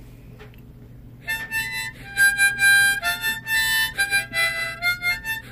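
Large metal toy harmonica with two rows of 20 holes, played in chords of several notes at once that change every half second or so, starting about a second in.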